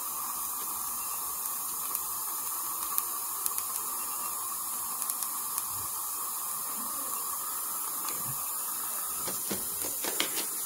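Steady hiss of dental suction running, with a few faint clicks.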